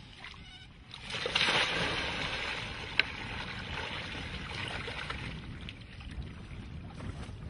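Water gushing and splashing out of a large bag hauled up from a well as it is emptied into a concrete trough. It swells suddenly about a second in and keeps pouring, with one sharp click about three seconds in.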